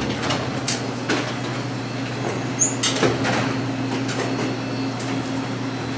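A vending machine's front door being shut and latched: a few sharp clicks and knocks, two of them close together about three seconds in, over a steady low hum.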